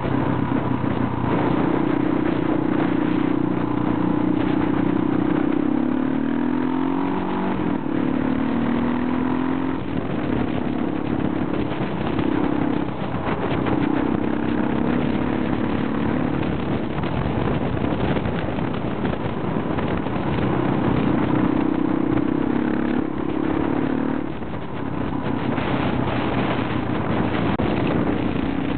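Motorcycle engine running under way, its note rising and falling with throttle and gear changes every few seconds, most noticeably about seven seconds in. Wind rushes steadily over the microphone.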